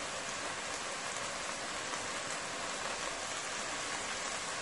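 Sausage frying with scallions, onions and bell peppers in hot oil in a pot on high heat: a steady sizzle.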